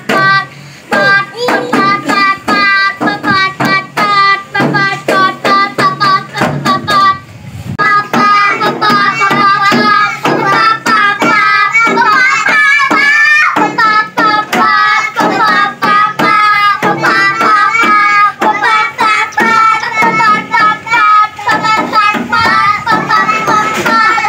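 Children's voices singing in a quick, steady rhythm over music, with two short breaks.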